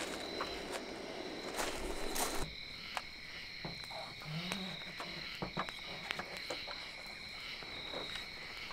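Steady high-pitched night chorus of calling insects and frogs, with scattered sharp crackles and pops from a campfire.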